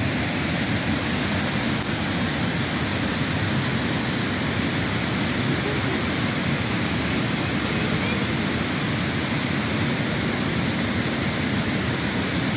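Steady rush of a muddy flash flood pouring down a rocky gully, an even unbroken water noise.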